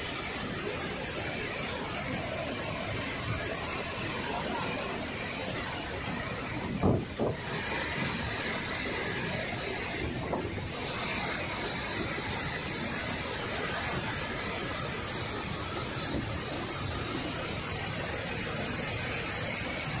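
A large waterfall in heavy, muddy flow makes a steady, rushing roar of falling and churning water. There is one short bump about seven seconds in.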